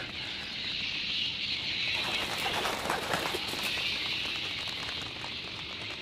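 Night-forest film ambience: a steady high hiss-like chirring, with faint rustling, like wings flapping, in the middle.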